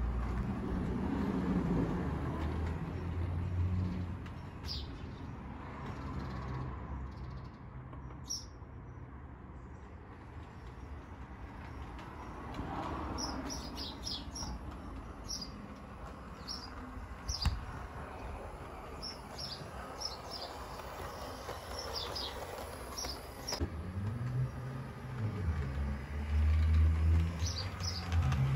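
A model railway diesel multiple unit running on the track, its small motor giving a low hum that is louder near the start and again as it comes close near the end. Birds chirp briefly again and again in the background.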